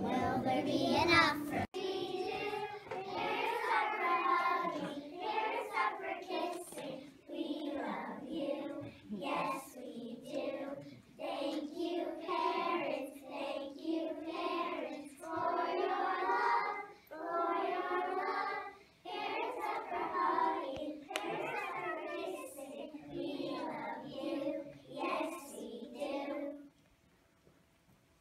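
A group of young children singing a song together in unison, with held notes, stopping a little before the end.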